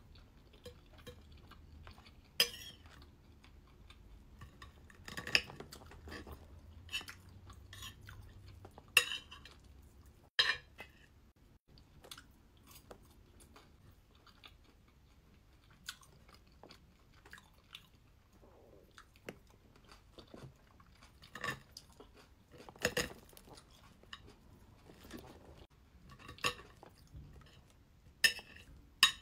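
Knife and fork clicking and scraping on a ceramic plate while cutting tuna-and-cheese toast, with close chewing and crunching of the toast between the irregular sharp clinks.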